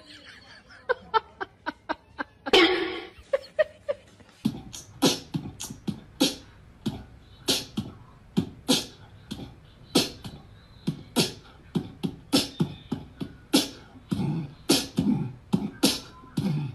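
Beatbox-style rhythmic beat of sharp percussive hits, about two to three a second. It is faint and sparse at first and gets louder and steadier about four seconds in.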